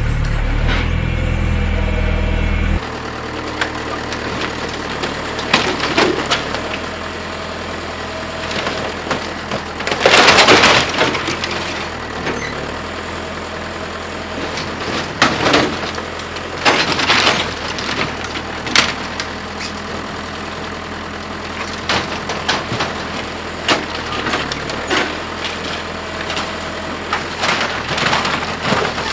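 John Deere 410 backhoe engine running steadily, its low drone dropping about three seconds in. Over it come repeated cracking crashes of a small wooden building being torn down, the loudest about ten seconds in.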